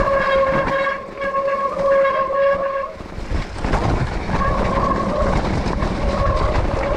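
Wet disc brakes on an electric mountain bike squealing with a steady high tone under braking on a descent, cutting out about three seconds in and coming back a second and a half later, over rumbling tyre and trail noise.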